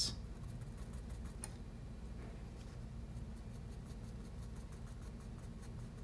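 Graphite pencil scratching faintly on drawing paper in many short strokes as a line is sketched, over a steady low hum.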